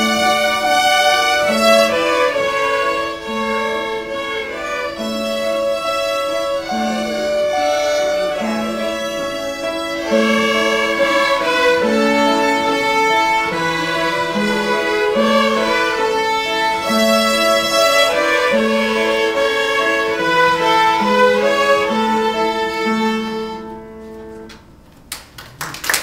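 A group of children's violins playing a simple tune together in unison, in steady repeated notes. The playing stops a couple of seconds before the end, and a few sharp taps start right at the close.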